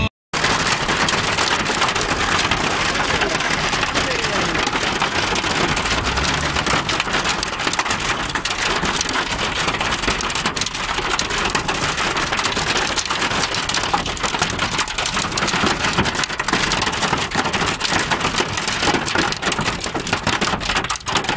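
Heavy rain falling on window glass: a dense, steady hiss full of fine, crackling drop hits, which cuts in abruptly just after a brief gap.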